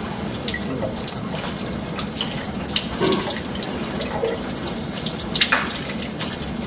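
Lab sink tap running steadily, the stream splashing over a small disc being rinsed in the hands. A few sharper splashes stand out, the strongest near the end.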